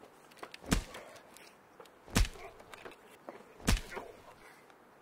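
Heavy, thudding blows struck down on a body, three in all, about a second and a half apart, each loud and sudden with a short ring after it.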